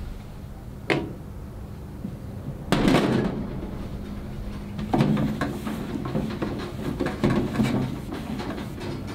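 Stainless steel portable charcoal grill set down on a stainless steel table, a loud metallic clatter about three seconds in, followed by several knocks and clunks as it is handled and wiped with a towel.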